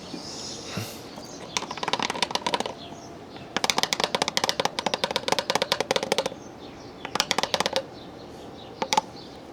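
Rapid runs of mechanical clicking, like a ratchet being worked: three bursts, the longest about three seconds, and a single click near the end.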